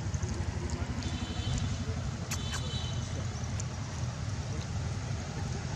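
A large engine, such as the parked truck's, running steadily in a low rumble, with two sharp clicks about two and a half seconds in.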